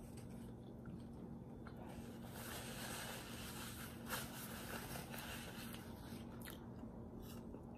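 Faint rustling and crinkling of a paper napkin as it is crumpled in the hand and used to wipe the fingers, loudest a couple of seconds in, with a few soft clicks.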